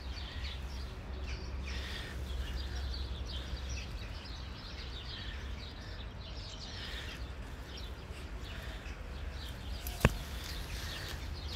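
Small birds chirping in quick scattered calls over a steady low outdoor rumble, with one sharp knock about ten seconds in.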